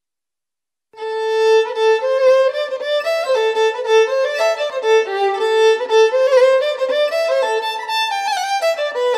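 Background music: a fiddle playing a quick melody, coming in about a second in after silence.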